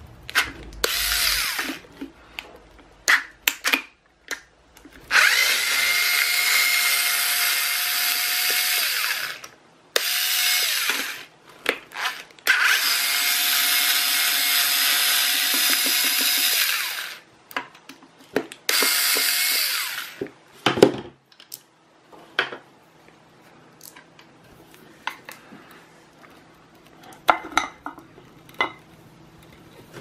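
Cordless drill driver backing screws out of a plastic push-button housing: five runs of steady motor whine, two of about four seconds and three of about a second. A sharp knock follows about two-thirds of the way through, then scattered small clicks.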